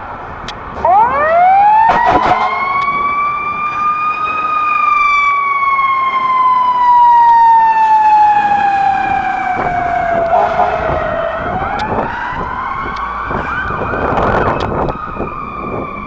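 Police car siren wailing: it starts about a second in and rises quickly, then falls slowly in pitch for several seconds and climbs again near the end.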